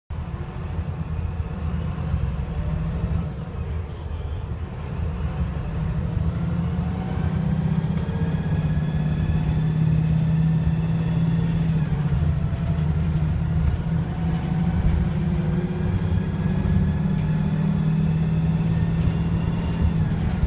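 VDL SB200 single-deck bus engine and Voith automatic gearbox accelerating, with a rising gearbox whine that drops back with a gear change about twelve seconds in and then climbs again. The engine is misfiring and sounds very unhealthy.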